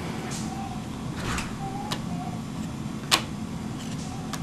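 Trading cards being handled and flipped through: soft brushing and sliding sounds with a few sharp clicks, the loudest about three seconds in.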